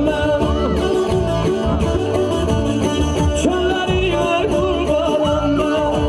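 Azerbaijani folk music played live: a man sings a gliding melodic line while strumming a saz, a long-necked lute, over a heavy steady bass.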